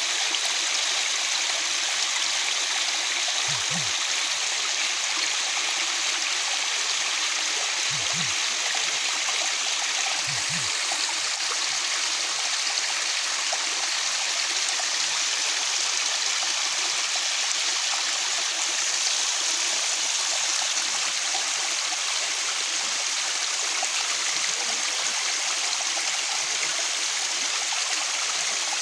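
Waterfall: a steady, even rush of falling water, hissy and bright with little low rumble.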